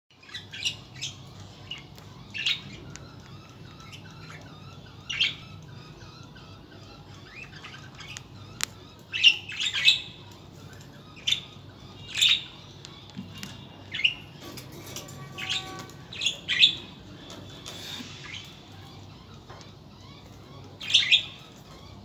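Budgerigars calling: short, sharp chirps and squawks at irregular intervals, some in quick pairs.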